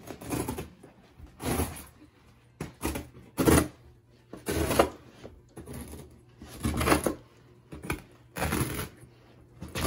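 Carpet and foam underlay being pulled up off the floor and folded back by hand: a run of short tearing and rustling noises, roughly one a second, the loudest near the middle.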